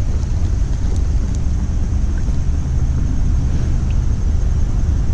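Steady low rumble of wind buffeting the microphone, with a couple of faint clicks about a second in.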